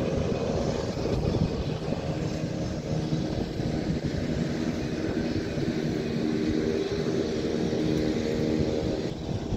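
Small air-ambulance aircraft's engines running at idle on the ramp, a steady drone with an even hum, heard from inside the cabin.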